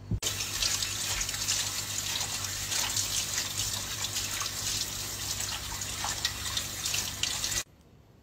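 Kitchen tap running onto a plate held under it in the sink, water splashing off the plate. It cuts off suddenly near the end.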